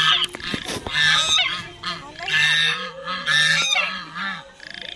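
White domestic geese honking on the water, about one call a second, with a few short clicks about half a second in.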